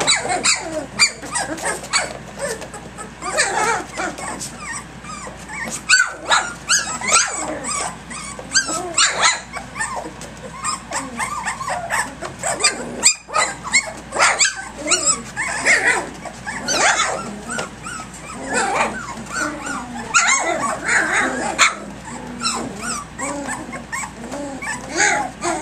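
A litter of three-week-old Doberman puppies calling constantly as they play-fight, many short high yips and whines one after another, with scattered clicks and knocks.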